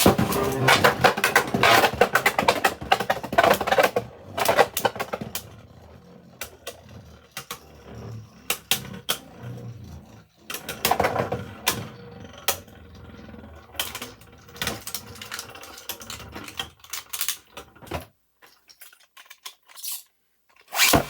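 3D-printed Beyblade spinning tops colliding and clattering, with rapid hits for the first few seconds, then scattered knocks over a spinning hiss. The sound drops out to near silence for a few seconds near the end.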